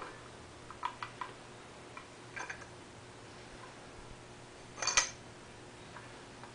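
A few light clicks and taps of metal parts being handled, as the thermostat and its housing are picked up and fitted together, with one louder clack about five seconds in, over a faint steady hum.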